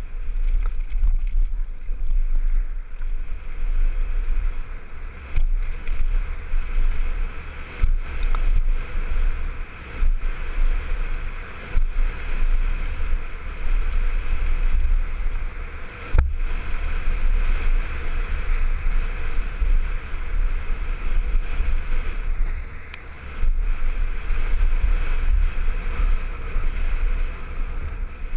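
Wind buffeting a helmet-mounted camera on a mountain bike riding fast down a dirt trail, with steady tyre rumble and rattle from the bike and a few sharp knocks from bumps.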